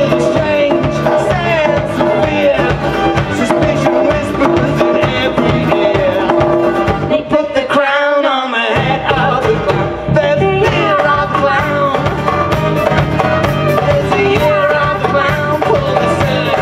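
Live folk-rock band playing: fiddle, acoustic guitar, electric bass and drum kit, with singing. About eight seconds in the bass and drums stop for under a second while the higher parts carry on, then the full band comes back in.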